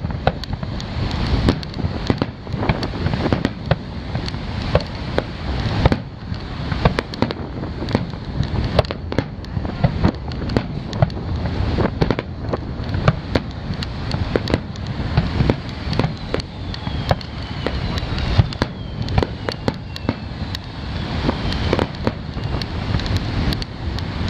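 Aerial firework shells bursting over and over, many sharp bangs and crackles in quick succession, with a faint falling whistle about two-thirds of the way through.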